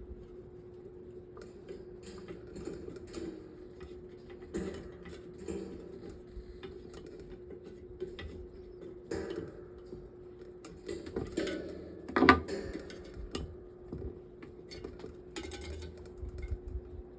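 Scattered small metal clicks, taps and clatters of table fan parts and a screwdriver being handled during reassembly, with one louder knock a little past the middle, over a steady hum.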